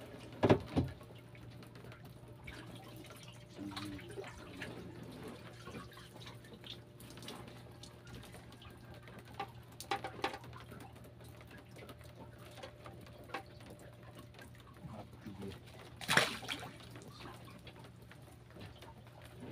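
Water dripping and splashing, with a few louder sharp sounds near the start and about sixteen seconds in, over a faint low steady hum.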